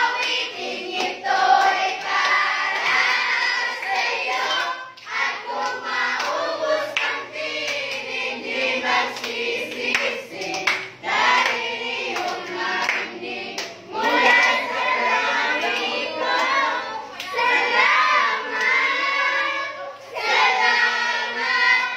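A group of young people singing together, with hand claps scattered through the singing.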